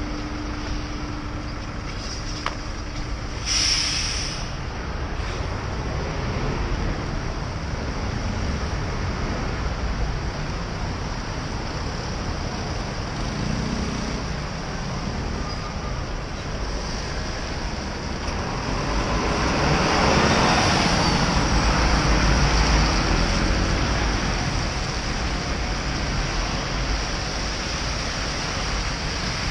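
Heavy city road traffic on a wet road, heard from a bicycle: a steady rumble of engines and tyre hiss, with a short sharp hiss about four seconds in and a louder swell around twenty seconds in as a large vehicle passes close.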